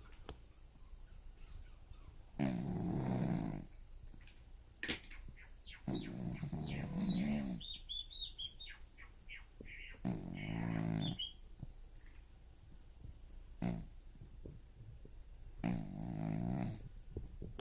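A deeply sleeping cat snoring like a middle-aged man: four loud, rasping snores about every four seconds, the second trailing off into faint high squeaky whistles.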